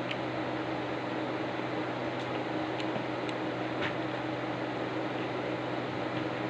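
Steady mechanical hum, like a fan or appliance, with a few faint, short clicks scattered through the first few seconds that fit a kitten chewing its food.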